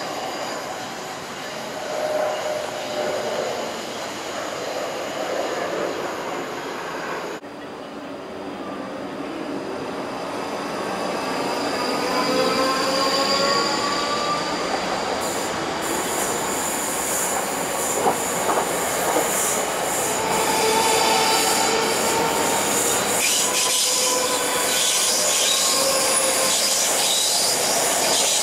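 Electric multiple-unit passenger trains running over curved track. The wheels squeal high, a motor whine glides up and down in pitch, and the noise grows louder as a unit passes close by.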